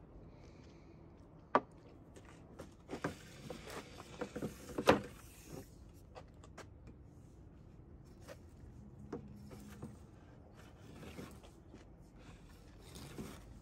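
Handling noises from a homemade cable-stripping jig clamped in a bench vise: a sharp click about a second and a half in, then a cluster of knocks and clinks of metal parts around three to five seconds in, the loudest near five seconds. After that come faint taps and rustling as the heavy insulated copper cable is fed through.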